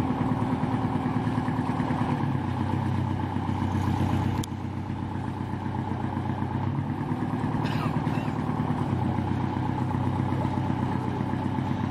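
Engine of a pale-green ex-naval patrol launch running steadily at low revs as the boat manoeuvres, a low even hum that grows a little stronger a couple of seconds in and again near the end. A single sharp click about four seconds in.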